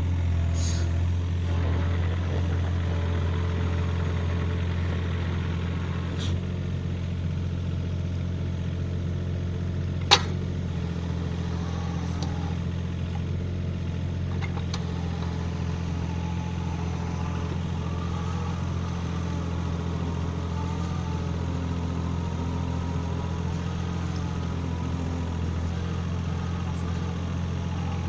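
Mini excavator engine running steadily, driving a hydraulic earth auger as it bores into and lifts out of soil. There is a single sharp knock about ten seconds in.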